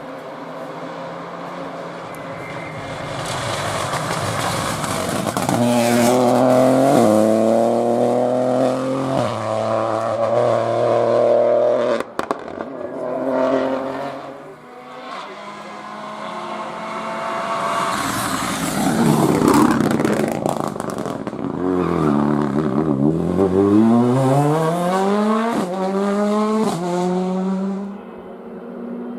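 Rally car engines at full throttle, revving up through a series of quick upshifts, with each shift dropping the revs before they climb again. A second hard acceleration with rapidly rising revs and more upshifts comes near the end.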